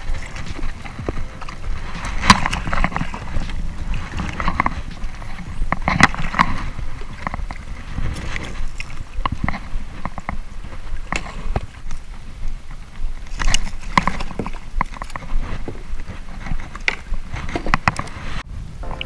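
Water splashing and sloshing against the side of a plastic kayak as a hooked fish thrashes at the hull, with irregular knocks and clatter from the angler handling the fish and gear against the hull.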